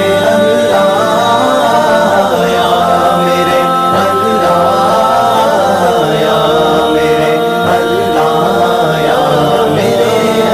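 Voices singing a naat without instruments: long held notes that glide and waver, with no clear words, between sung lines of the hymn.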